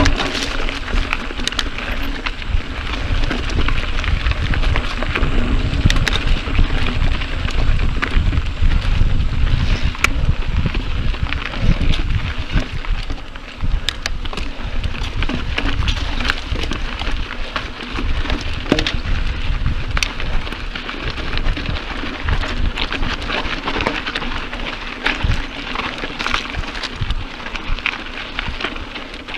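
Mountain bike rolling along a dirt and gravel singletrack: tyres crunching over the trail surface with many small clicks and rattles from the bike, and wind buffeting the camera microphone as a low rumble.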